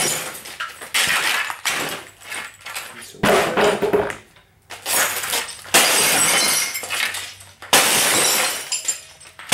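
Old RCA console television being smashed apart: about five heavy blows, each followed by breaking glass and clattering, shattering debris.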